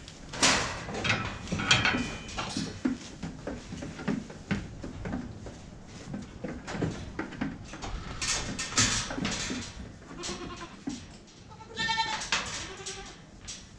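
Boer goats in a pen: repeated knocks, rattles and scuffles against metal pen panels, with a goat bleating once about twelve seconds in.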